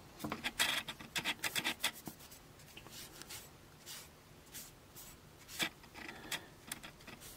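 Cotton pad soaked in alcohol rubbing along the metal blades of bonsai scissors to disinfect them. It makes a quick run of soft scrapes in the first two seconds, then sparser strokes.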